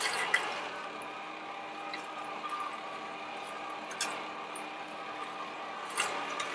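Shine Kitchen Co. vertical slow (masticating) juicer running with a steady low hum as it crushes cucumber, with juice trickling from the spout into the jug. A few short clicks come about 4 and 6 seconds in and once just after the start, as pieces are fed into the chute.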